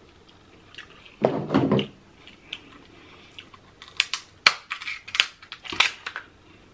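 Scissors snipping through a king crab leg's shell: a run of sharp cracks and clicks in the second half. About a second in there is a louder, duller noise of handling.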